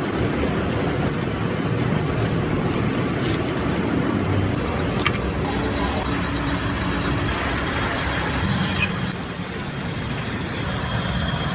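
Steady mechanical running noise, with a few faint sharp clicks.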